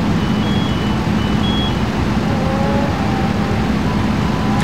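Steady low drone of an idling fire-truck diesel engine. In the first two seconds a few short high beeps sound, alternating between two pitches.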